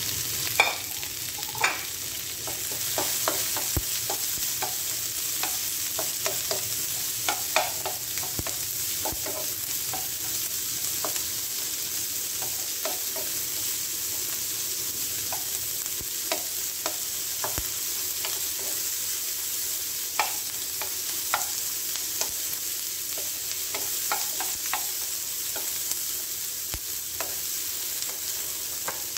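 Onion and bell pepper sizzling in a nonstick wok while a wooden spatula stirs them, with a steady hiss of frying and scattered scrapes and taps of the spatula against the pan, the sharpest taps near the start.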